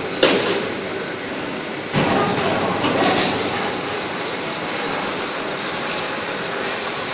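Steady industrial workshop machinery noise, a broad mechanical rumble and hiss, with a sharp knock just after the start and a louder stretch from about two seconds in.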